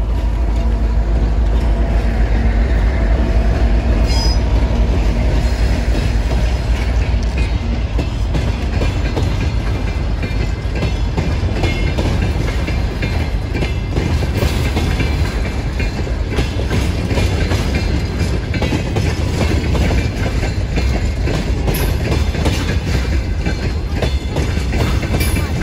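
2TE10M diesel locomotive passing close by with a freight train: a loud low rumble with a steady engine drone at first, then the freight wagons' wheels clattering rhythmically over the rail joints.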